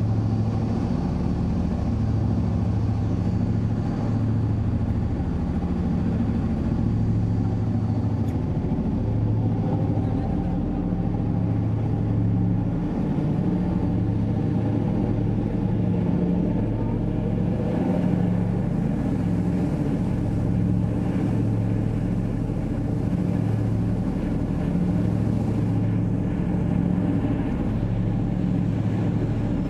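A car ferry's engines droning steadily, a low hum that pulses slightly, with a steady rushing noise of wind and water over it.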